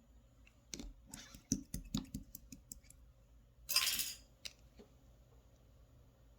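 Slime being handled: a run of small sticky pops and clicks, then a longer squelch about four seconds in.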